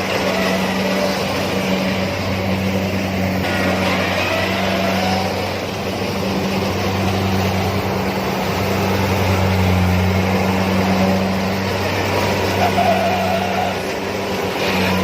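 Kubota DC-70 combine harvester running steadily, its diesel engine a constant low hum under the noise of the machinery.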